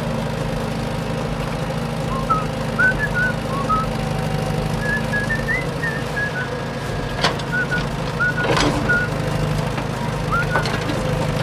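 A vehicle engine running with a steady low hum, with short high chirps scattered over it and two sharp knocks, about seven and eight and a half seconds in.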